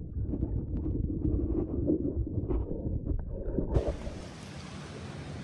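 Muffled underwater sound through a waterproofed camera: a low, uneven rumble with scattered knocks as a wooden stick is worked against a blue crab gripping it. About three-quarters of the way through it cuts abruptly to a steady open-air hiss of shallow water and wind.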